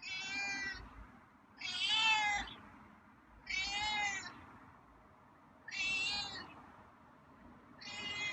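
A feral tomcat meowing over and over: five loud meows, one about every two seconds.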